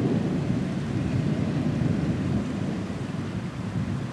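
Rolling thunder: a long, low rumble that slowly fades away.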